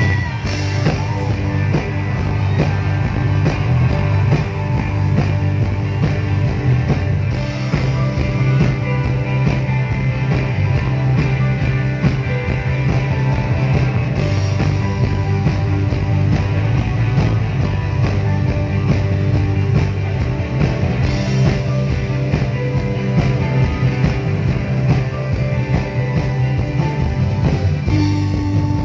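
Live rock band playing loud through a PA: electric guitars, bass guitar, keyboard and drums, with a strong bass line and a steady drum beat.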